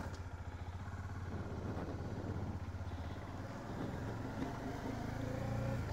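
Bajaj Dominar 400's single-cylinder engine running with a steady low pulsing note. Its pitch and loudness rise a little over the last couple of seconds.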